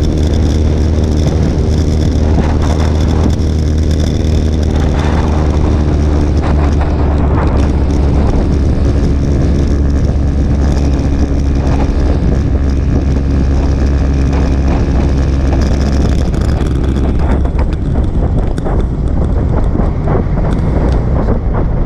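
Motorcycle engine running at a steady cruise, with wind rushing over the microphone. The steady engine note becomes rougher and less even about three-quarters of the way through.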